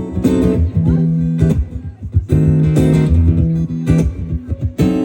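A live rock band playing a song's instrumental intro, with strummed guitar chords leading over the band.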